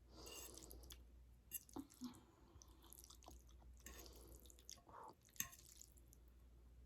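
Faint, wet chewing of black bean instant ramen noodles, with a few small mouth clicks.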